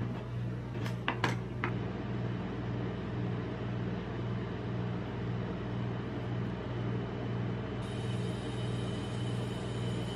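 Steady low hum of a rolled-ice-cream cold-plate machine. About a second in, a metal spatula gives a few sharp clicks against the steel plate.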